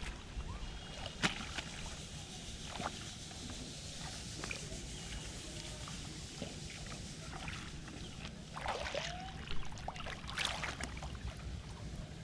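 Shallow water sloshing and splashing as a person wades and gropes with her hands in a flooded field, in scattered bursts that are busiest near the end, over a steady background hiss.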